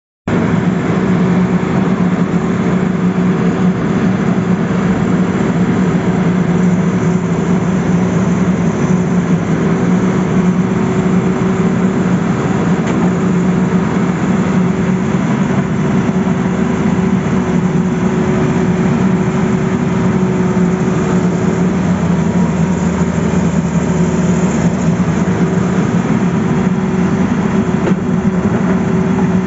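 Tata Hitachi crawler excavator's diesel engine running steadily under work, a constant low drone with a steady hum above it.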